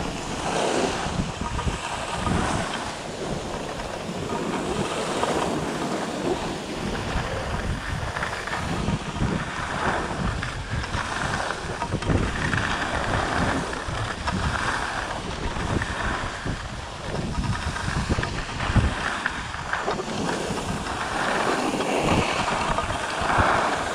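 Wind rushing over the microphone of a camera carried by a skier moving downhill, with the skis hissing and scraping on packed snow in surges every few seconds as the turns come.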